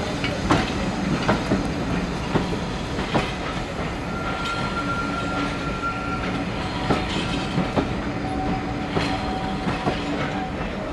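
Steam-hauled passenger train rolling on the rails, its wheels clicking irregularly over rail joints, with a thin steady wheel squeal for about two seconds around the middle.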